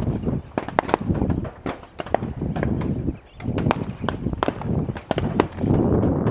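Many scattered sharp cracks of shotgun fire, several a second at times, over a heavy rumble of wind on the microphone.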